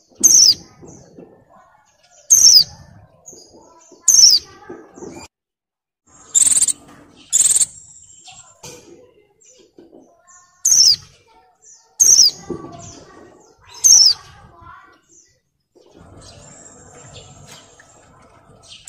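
Caged female white-eye (pleci) in breeding condition giving its ngalas call: about eight short, sharp, very high calls, several of them quick downward sweeps, spaced one to two seconds apart, then a pause of a few seconds near the end. It is a female's call to males, the kind used to set male pleci singing.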